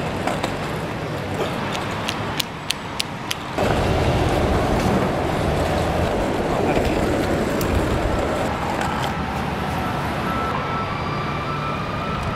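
City street traffic and road noise heard while riding along a street. A few sharp clicks come about two to three seconds in, then the noise gets suddenly louder and stays steady.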